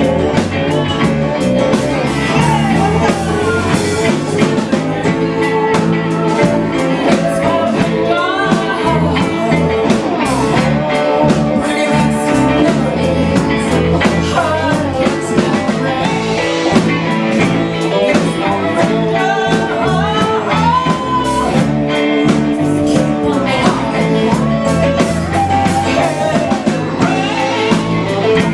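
Live band music with singing over electric guitars, keyboard, bass guitar and a steady drum beat.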